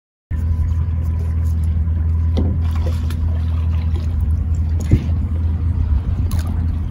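Boat motor running steadily at trolling speed, a low even hum, with a few brief knocks on top.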